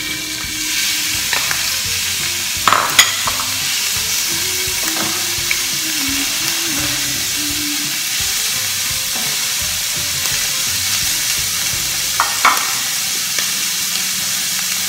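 Sliced beef searing in a hot stainless steel pan, a steady sizzle, stirred with a wooden spatula that knocks against the pan a few times, about three seconds in and again near the end.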